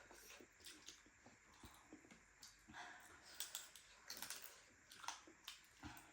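Faint, scattered clicks and smacks of someone chewing food with their mouth close to the microphone.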